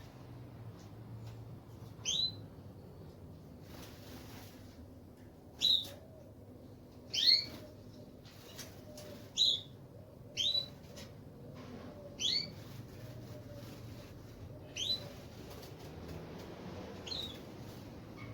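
A small aviary finch, a canary or goldfinch, calling about eight times with short single notes that each sweep quickly downward in pitch. The calls come irregularly, one to two and a half seconds apart.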